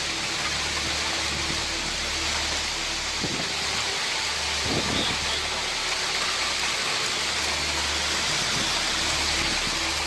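Torrential rain in a windstorm: a steady, dense hiss of downpour with a low rumble underneath.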